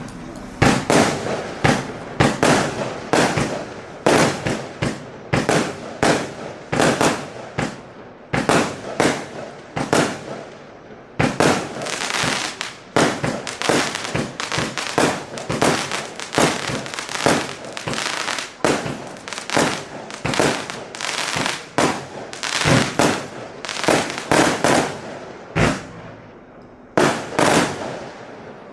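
A 36-shot, 0.8-inch firework battery (cake) firing: a rapid series of sharp bangs, about one to two a second, each trailing off with a crackling smear, thinning out near the end.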